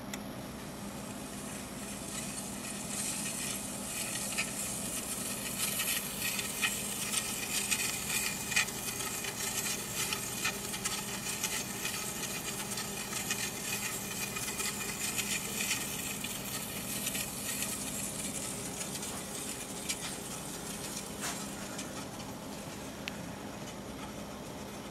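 Hardened steel block dragging on a steel saw blade spinning on a turntable platter: a scraping hiss scattered with many small ticks, swelling a couple of seconds in and easing off toward the end, over a low steady hum.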